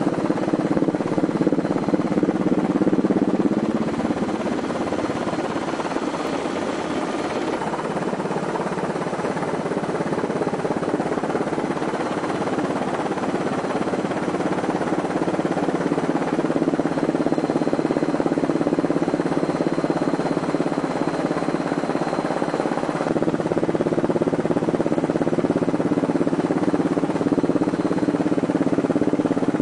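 Helicopter in flight, heard from on board: a steady engine and rotor drone whose low hum shifts slightly in pitch now and then.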